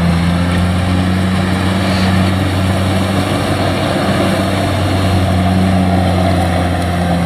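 Kubota DC-70 combine harvester's diesel engine running steadily at working speed, with a constant low hum and the dense clatter of the harvesting machinery; the machine is pulling well through deep mud.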